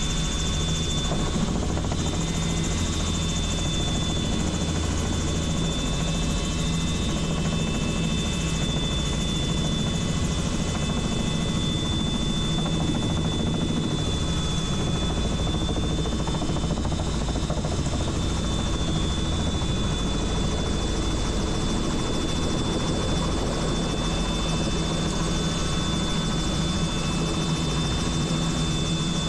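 Helicopter in flight, heard from on board: a steady rotor and engine din with a thin, steady high-pitched whine over it.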